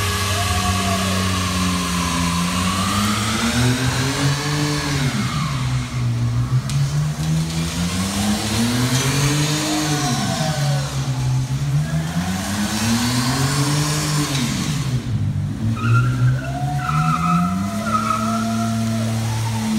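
BMW E39 5 Series doing a burnout: the engine revs up and down in repeated swells every few seconds while the spinning rear tyres squeal, in a concrete parking garage.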